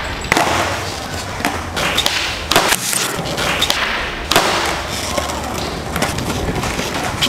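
Skateboard doing flatground tricks on a smooth hard floor: wheels rolling, broken by several sharp tail pops and board landings, the clearest about two and a half and four seconds in. The sound echoes in a large underground hall.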